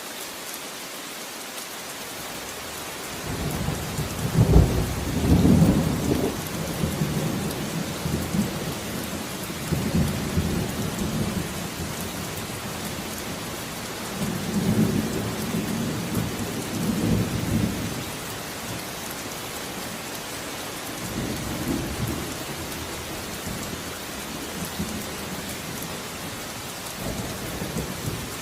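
Steady rain with rolling thunder: a low rumble builds about three seconds in, is loudest a couple of seconds later, and returns in weaker waves several times.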